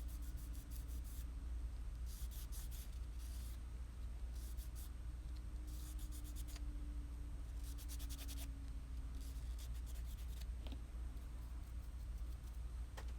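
Medium-grade side of a sanding block rubbed along the edge of an epoxy resin coaster, taking down the raised lip left by the mould: runs of quick, scratchy strokes every second or two, over a low steady hum.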